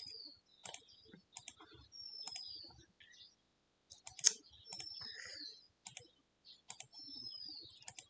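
Computer mouse clicking repeatedly as frame members are selected one after another, with one louder click about four seconds in. A short high falling whistle repeats about every two and a half seconds alongside the clicks.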